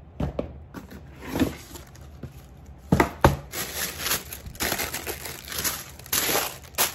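Cardboard shoe box being opened, with two sharp knocks about three seconds in. Tissue wrapping paper then crinkles and rustles in a series of bursts as it is unfolded from around the shoes.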